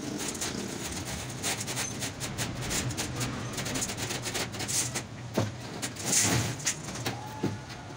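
Steel wire clinking and scraping against a steel wire mesh as a straight wire rod is worked through it by hand, with frequent small metallic ticks and a few louder knocks in the second half, over a steady low hum.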